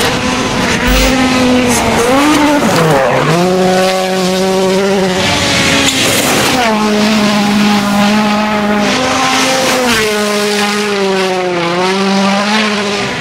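World Rally Cars' turbocharged four-cylinder engines at full throttle on a gravel stage, revving hard with the pitch climbing and dropping at each gear change. Around halfway there is a rush of gravel and tyre noise.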